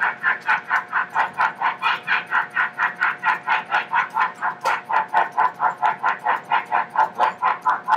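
Synthesizer keyboard played with a fast pulsing patch: an even stutter of about five or six pulses a second over a steady held tone.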